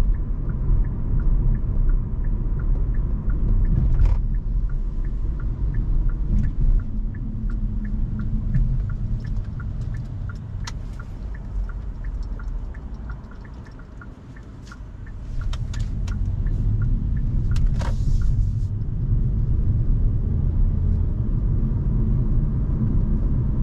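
Low road and drivetrain rumble inside the cabin of a Hyundai Kona Hybrid, with a faint, evenly spaced ticking of the turn signal for a right turn. A few sharp knocks cut through. The rumble drops away for a moment about fourteen seconds in, then comes back.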